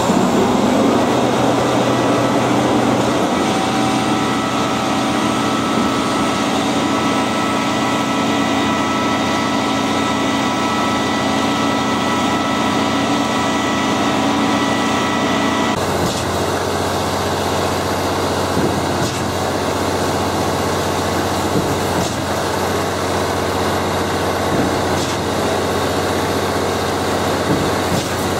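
A heavy engine running steadily, with a sudden change in its sound about sixteen seconds in.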